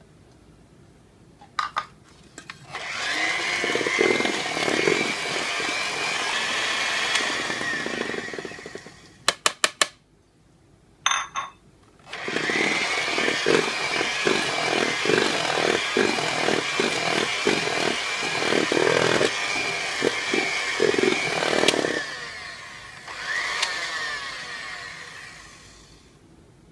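Electric hand mixer running with its steel beaters whirring through cake batter in a stainless steel bowl. It stops about a third of the way in, a quick run of sharp clicks follows, then it runs again for about ten seconds and once more briefly before fading out.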